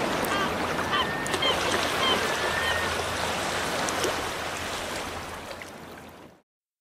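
Ocean surf washing onto a beach, a steady rush of water with a few short high chirps over it, fading out near the end.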